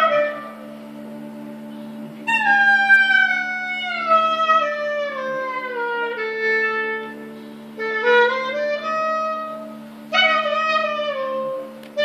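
Live Turkish classical music in makam Hicaz: a single melody line played in long phrases that fall in pitch, with short pauses between them, over a steady low hum.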